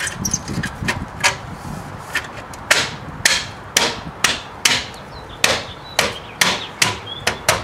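Hand taps on a plastic hubcap, knocking it into place on a steel wheel: a series of sharp, separate knocks, roughly two a second.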